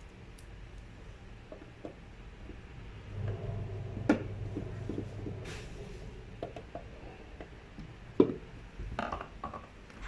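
Handling noises: scattered clicks and knocks, two of them sharper about 4 and 8 seconds in, with a brief low hum in the middle.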